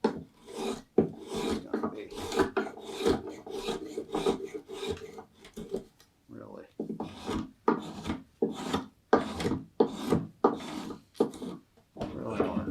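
Spokeshave shaving green black walnut in repeated scraping strokes, about two a second, with a short pause about six seconds in. The blade works against gnarly, forked grain that tends to tear.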